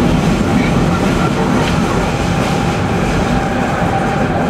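Rome Metro Line A train running through the tunnel, heard from inside the car: a loud, steady rumble of wheels on rails with a faint whine above it.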